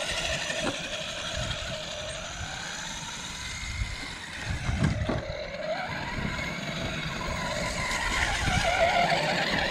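Traxxas Sledge RC truck's electric drive motor whining rough as the truck drives around slowly, its pitch rising and falling with the throttle, with a few knocks about halfway through. The owner takes the bad sound for a dying motor, perhaps a bearing in the motor going.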